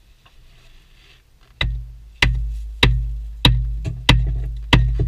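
Big hammer striking timber headboards in a boarded mine tunnel: after about a second and a half of quiet, six heavy blows at a steady pace, a little under two a second. Each blow lands with a sharp crack and a deep boom that rings on in the enclosed timbering.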